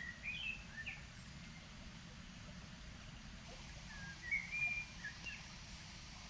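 River water running steadily, with songbirds chirping over it: a few short chirps in the first second and a brighter burst of song about four seconds in.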